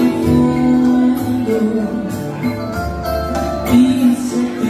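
Music with singing: a song with held notes over an instrumental accompaniment and a moving bass line.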